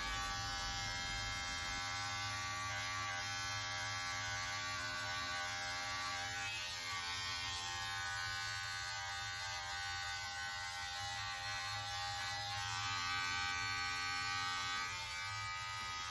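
Electric hair clippers running with a steady buzz while trimming short hair and peach fuzz from the jaw, chin and neck.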